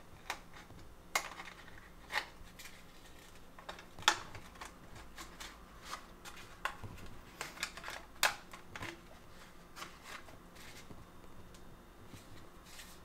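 Scattered sharp clicks and light knocks of the plastic parts of a motel-room coffee maker being handled and set up, the loudest about four and eight seconds in, over a faint steady low hum.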